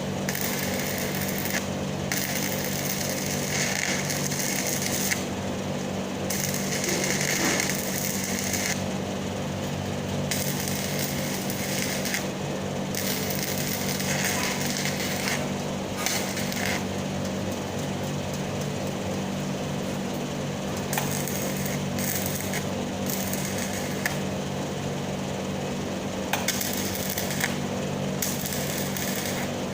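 Stick-welding arc crackling and sizzling in stretches of a few seconds, breaking off briefly and restarting many times, over a steady low hum.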